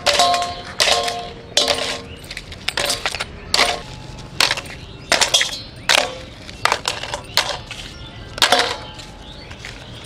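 Dried potato papads dropped one by one into a stainless steel bowl. Each lands with a crisp clatter and a brief ring from the bowl, irregularly, about one or two a second.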